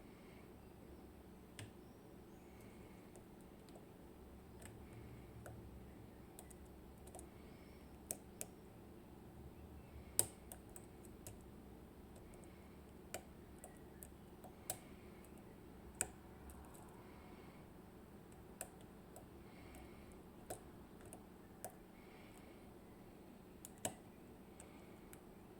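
Faint, irregular small metallic clicks of a lock pick working the pin stacks of an IKON SK6 euro cylinder, as the tapered spool pins are picked under tension. About a dozen sharp clicks spaced unevenly, a few of them louder.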